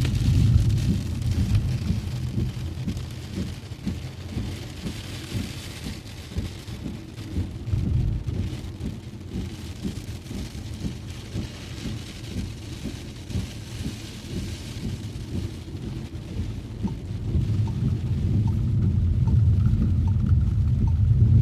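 Heavy rain hissing, over a steady deep rumble from a car driving through it on wet streets. The rain hiss thins after about six seconds, and the rumble swells again near the end, with faint regular ticks.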